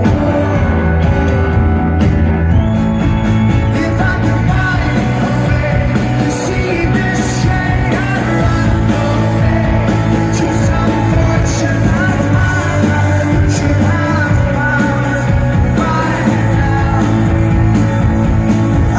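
Indie rock band playing live, with a male lead singer over guitars, heavy bass and drums, loud and steady throughout.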